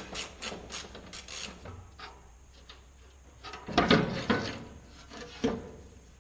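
Ratchet wrench clicking rapidly, about five clicks a second, while undoing the screws on a wheel loader's hydraulic reservoir cover, followed by a louder metallic clatter about four seconds in and a single knock shortly after.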